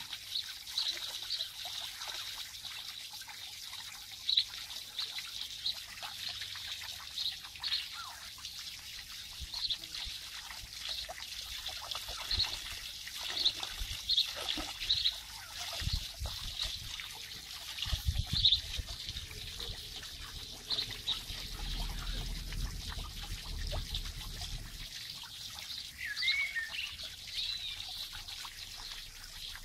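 Water trickling steadily into a garden pond, with short high chirps every second or so and a bird call near the end. A low rumble, like wind on the microphone, comes in for several seconds in the second half.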